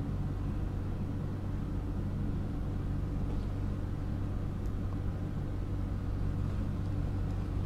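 Steady low electrical hum and background noise on the recording, with no other events.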